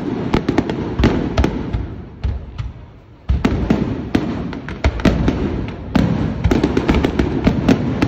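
Fireworks display: a rapid string of bangs from aerial shells bursting and crackling over a constant low rumble. The barrage drops off briefly about three seconds in, then a new volley starts suddenly.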